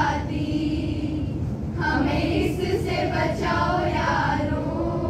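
A group of girls singing together in unison, with a short break about a second and a half in before the voices come back.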